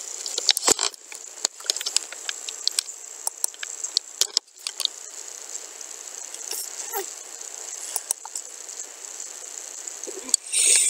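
Irregular sharp clicks of a computer mouse and keyboard, many in the first few seconds and fewer later, over a steady microphone hiss with a faint high whine.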